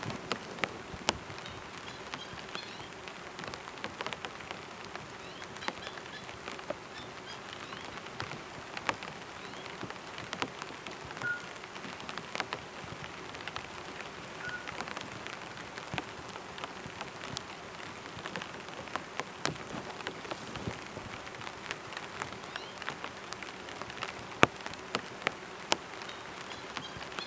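Steady rain falling, with heavy drops striking a tarp close by as irregular sharp taps.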